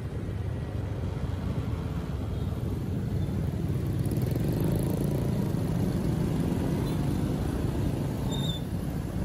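Steady low rumble of a vehicle travelling on the road, swelling slightly midway, with a few faint short high-pitched squeaks near the end.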